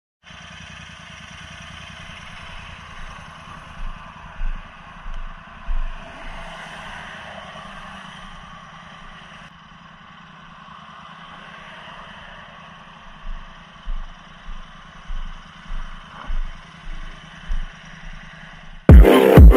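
A motorcycle running, heard as a steady noise broken by two spells of irregular low thumps. Electronic music with a heavy beat cuts in loudly just before the end.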